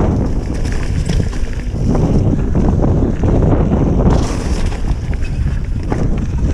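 Wind buffeting the microphone over the rumble and rattle of a mountain bike descending a dirt trail, with scattered knocks from the bike and trail.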